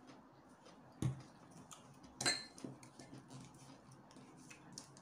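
Plastic bottle handled on a table as fingers try to twist off a cap that is hard to open: faint clicks and ticks, a sharp knock about a second in and a louder knock with a brief ring a little past two seconds.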